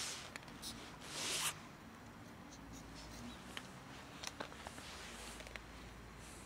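Cat crunching dry kibble: faint, scattered small clicks, with a brief hissing rustle about a second in.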